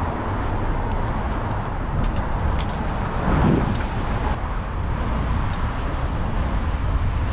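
Steady road traffic on a busy city street, cars and a bus running alongside, with a brief swell as a vehicle passes a little over three seconds in.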